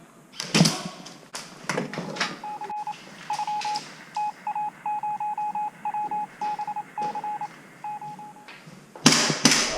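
An electronic device giving a string of short beeps, all at one pitch, in an uneven rhythm like keys being pressed on a keypad, after a few sharp knocks. A loud rustling burst comes near the end.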